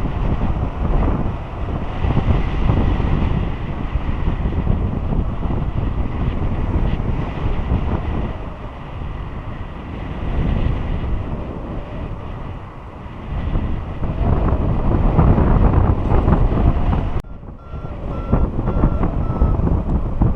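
Airflow buffeting the microphone of a camera worn by a paraglider pilot in flight, rising and falling. About 17 seconds in, a flight variometer gives short beeps at one pitch, about two a second, the signal that the glider is climbing.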